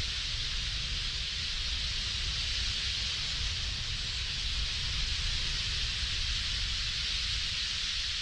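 A vast flock of bramblings over their roost, countless calls and wingbeats blending into a steady high hiss, with a steady low rumble underneath.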